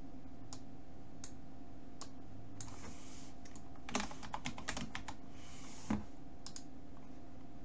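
Computer keyboard typing: scattered single keystrokes and quick runs of key clicks, over a faint steady hum.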